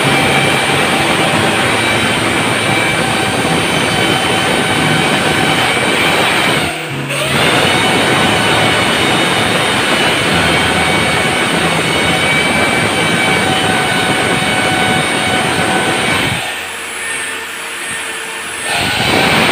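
Electric drill boring into the tiled bathroom wall to mount a towel ring: a steady loud motor whine over grinding noise, with a short pause about seven seconds in and a drop near the end before a final short run.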